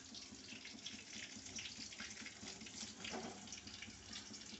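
Chicken pieces sizzling and bubbling in hot oil in a pot: a steady crackling hiss of many small pops.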